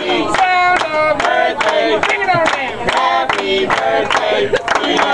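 A group of restaurant servers singing a birthday chant in unison, clapping along about twice a second.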